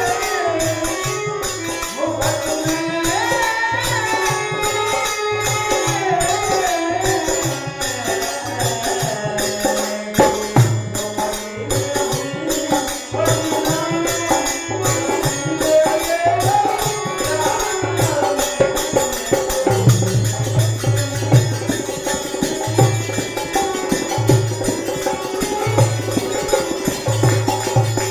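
Hindi devotional bhajan music: a wavering melody line over a steady hand-drum beat and rhythmic jingling percussion.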